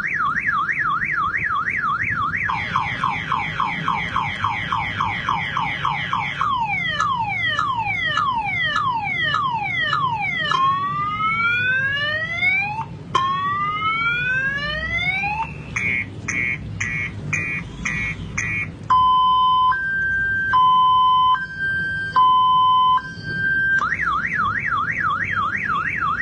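Car alarm siren sequence imitated by mouth in beatbox style. It runs through several tones in turn: a fast up-and-down warble, a string of falling chirps, two slow rising whoops, rapid beeping, and a slow high–low two-tone. The warble returns near the end.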